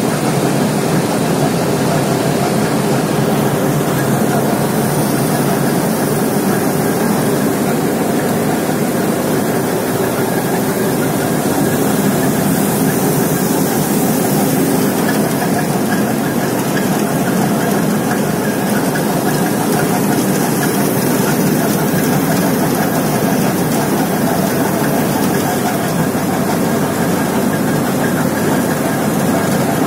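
Steady, loud din of mineral-processing plant machinery running: a bucket elevator and a rotating drum separator with garnet grains streaming over it.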